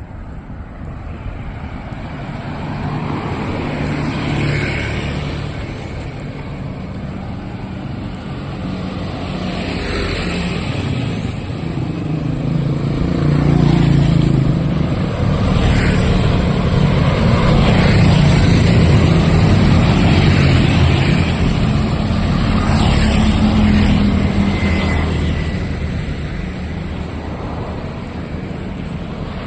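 Road traffic passing close by: motor vehicle engines running and going past, growing louder toward the middle and easing off near the end.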